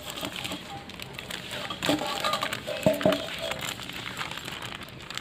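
Plastic flour packet rustling and crinkling as it is cut open with a small blade and handled, with a couple of sharp knocks about two and three seconds in.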